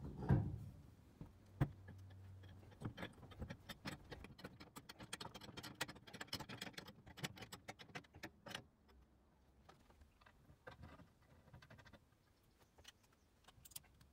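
Hand handling of a steel camera-mount arm and its bracket: a few knocks as the metal parts meet, then a run of rapid small clicks and rattles for several seconds as a fitting at the bracket is worked, thinning to scattered clicks near the end.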